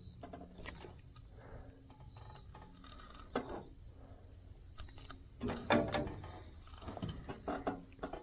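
Scattered light clicks and rattles with a few louder knocks near the middle and end: handling noise of fishing gear and a just-caught fish.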